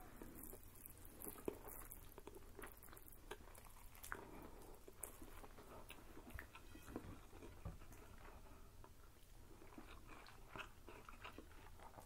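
Faint eating sounds of pismaniye, Turkish cotton candy, being chewed: soft chewing, lip smacks and scattered small mouth clicks.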